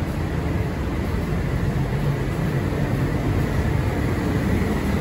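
Guangzhou Metro Line 22 train running between stations, heard from inside the car: a steady low rumble of running noise with a faint thin whine above it.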